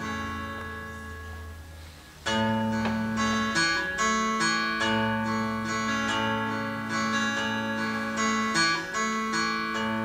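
Acoustic guitar playing a song's instrumental introduction: a single chord rings and fades, then about two seconds in a steady picked chord pattern begins.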